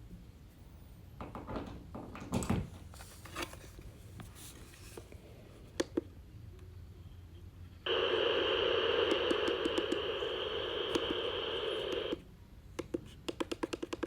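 Small clock radio speaker hissing with steady radio static for about four seconds, cutting off suddenly, amid light plastic handling clicks; a quick run of clicks follows near the end.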